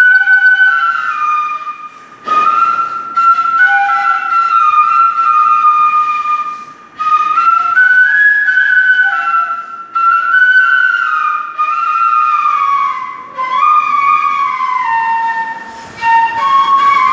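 Side-blown bamboo flute playing a slow melody of long held, sliding notes, in phrases broken by short pauses for breath.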